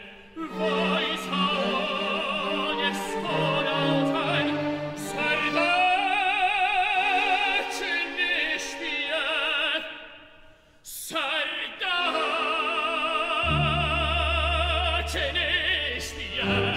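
Operatic tenor singing a Polish aria with wide vibrato, accompanied by a symphony orchestra. The music nearly stops for a moment about two-thirds of the way through, then the voice returns on a held note as the orchestra comes in underneath with deep bass notes.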